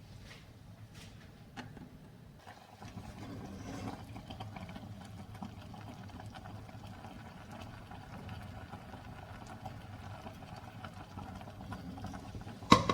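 Rice and milk for kheer simmering in a pan on the stove, with a steady low bubbling and hum. One sharp knock comes near the end.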